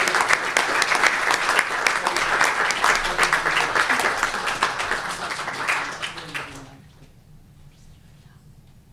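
Audience applauding, the clapping dying away about two-thirds of the way through.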